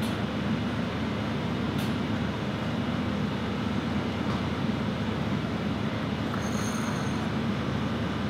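Steady mechanical drone of commercial kitchen machinery, with a faint click early and a brief high ringing clink about six and a half seconds in.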